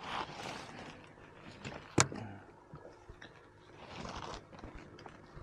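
Faint scraping and handling noise of hands and gear against the kayak, with one sharp click about two seconds in.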